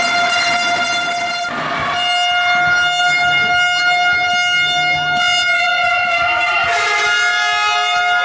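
Fans' air horns blowing a loud, long steady high note, broken briefly about one and a half seconds in, with a second, lower horn joining near the end.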